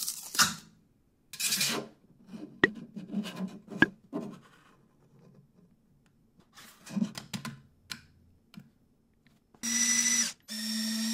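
Hard plastic scraping and rubbing as a 3D-printed excavator bucket is pried off a printer bed and handled, with a few sharp clicks. Near the end a small electric motor starts whining steadily, stops briefly and starts again.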